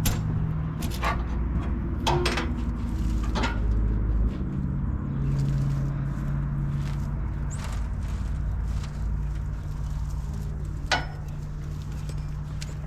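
A vehicle engine running low and steady, its pitch shifting a few times, with several sharp knocks or clanks over it.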